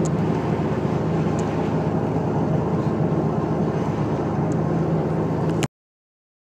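Steady car interior noise while driving on a wet road: a low engine hum under tyre hiss, with a few faint ticks. It cuts off abruptly near the end.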